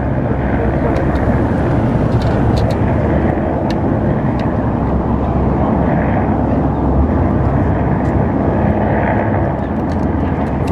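Loud, steady engine drone with a low hum, as a van drives past close by at the start.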